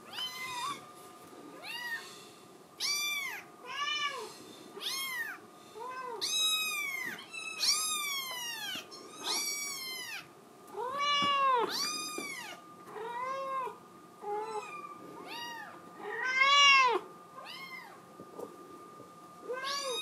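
A young kitten meowing over and over, a long run of high, arching cries about a second apart, some drawn out: crying to be let out of its playpen.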